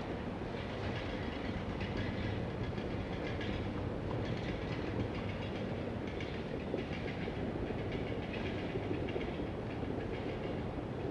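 Steady rumbling outdoor background noise with a faint, irregular clatter over it.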